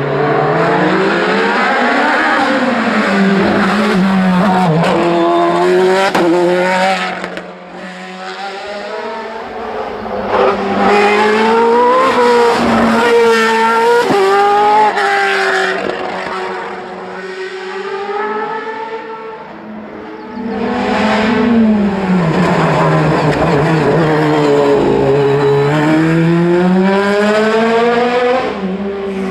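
Hill-climb race car engines at high revs, the pitch climbing and dropping again and again through gear changes and lifts off the throttle. The sound fades twice and comes back loud as cars pass.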